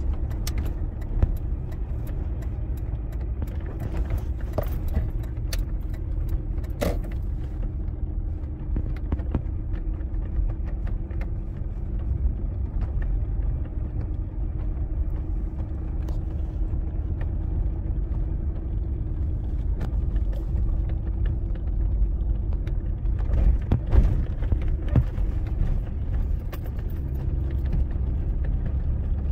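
Road noise heard inside a car's cabin while driving at low speed: a steady low rumble of engine and tyres with a faint constant hum. Light rattles and clicks come and go, mostly around four to seven seconds in and again near twenty-four seconds.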